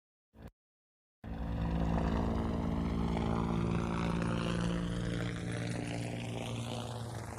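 Helicopter sound effect playing through a Doppler effect set to carry it from right to left: a steady rotor and engine drone with a low hum and slowly sweeping higher tones, which sounds fairly far away. It starts about a second in after a brief click and slowly fades toward the end.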